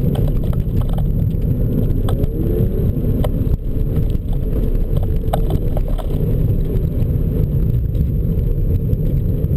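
2009 VW GTI's 2.0-litre turbocharged four-cylinder engine heard from inside the cabin, its pitch rising and falling as the car accelerates and slows between cones, over a heavy low rumble. A few sharp clicks or knocks sound in the middle.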